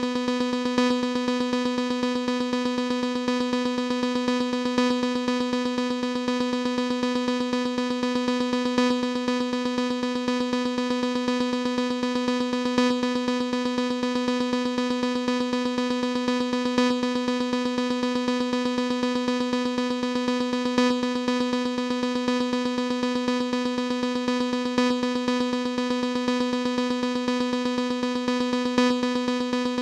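Synthesized imitation of a fire alarm: a single electronic note repeated very rapidly and evenly, with a slightly louder accent every four seconds as the pattern loops.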